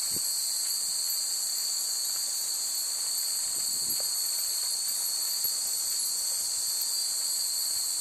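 Steady high-pitched chorus of insects, an unbroken shrill drone.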